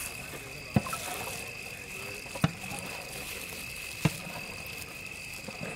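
Knife spreading jam on a bread slice, with three sharp clicks about a second and a half apart over a steady high-pitched whine and hiss.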